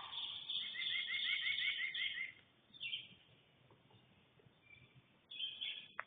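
Animal calls: a fast run of about nine short rising chirps over a harsh, hissy sound in the first two seconds, followed by two shorter hissy bursts and a sharp click near the end.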